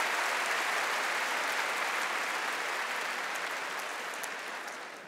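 A large audience applauding, the clapping slowly dying away toward the end.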